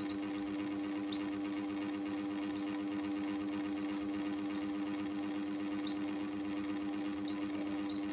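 Chicks cheeping in short, high, trilling calls, about one call a second, over a loud steady electric hum.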